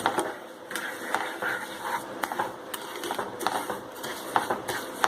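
Spatula scraping and clicking against a pan while stirring ghee-roasted gram flour paste with sugar: irregular scrapes and knocks, several a second.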